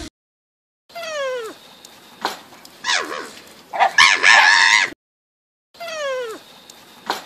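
Porcupine whining and squealing: a few falling whines and clicks, then a loud harsh squeal about four seconds in. After a brief silence the same sequence starts again.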